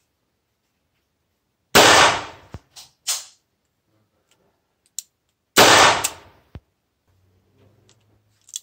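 Two shots from a Smith & Wesson Model 10 .38 Special revolver, about four seconds apart, each with a brief ringing tail. Fainter clicks and knocks come between the shots.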